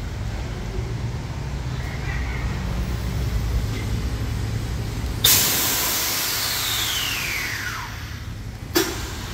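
Front air suspension of a Scania 113H truck venting air through its valve block when worked by remote. A sudden loud hiss about five seconds in carries a whistle falling in pitch and fades over about two and a half seconds, then a brief second hiss comes near the end, over a low steady rumble.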